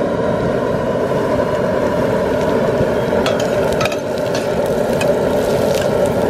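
High-output propane burner running steadily with a loud, even rush under a stainless steel pot of frying onions. From about halfway in, a metal spoon scrapes and clicks against the pot as the onions are stirred.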